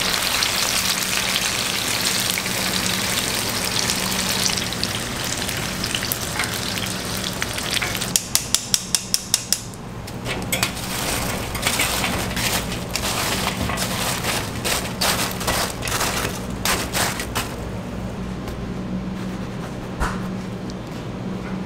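Battered green peppers deep-frying in oil with a steady sizzle. About eight seconds in comes a quick run of about eight sharp metallic taps. Then steel tongs clink against a metal mesh strainer as the fried peppers are lifted out, and the sizzle drops off near the end.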